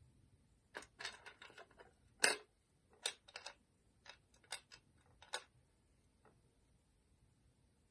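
A string of small clicks and taps from a phone's parts and the tools working on them, about a dozen in irregular clusters, the loudest a sharp click about two seconds in, then one faint tap near six seconds.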